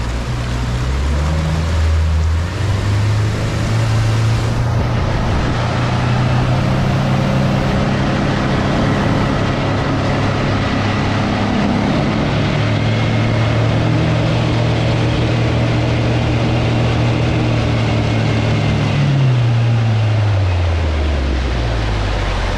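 A bass boat's outboard motor runs under way. It climbs in pitch in the first couple of seconds as it is throttled up, then holds a steady note over the hiss of wind and water, and its pitch drops near the end.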